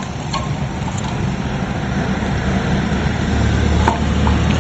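Low steady rumble that swells near the end, with a few light clicks as a fat-tyre front wheel is handled into an e-bike's fork.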